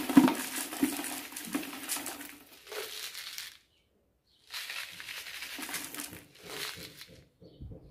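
Granulated caustic soda pouring from a plastic tub into a plastic bucket: a rattling hiss of small pellets. It breaks off, and after about a second of silence a second pour starts about four and a half seconds in.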